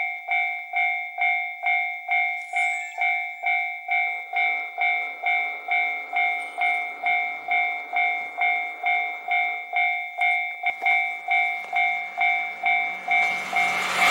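Japanese level-crossing warning bell ringing steadily, about one and a half electronic bell strokes a second. Near the end the rising noise of an approaching diesel train starts to cover it.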